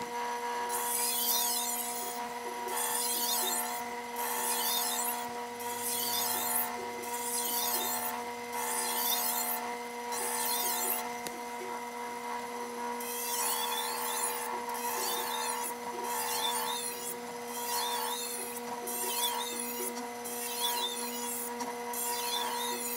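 A thin Japanese chef's knife held in a jig is ground on the motor-driven 1000-grit wheel of a sharpening machine. The machine hums steadily under a rasping grind that swells and fades with each pass along the edge, about one pass every second and a half. The grinding pauses briefly about halfway through while the knife is flipped to do the other side.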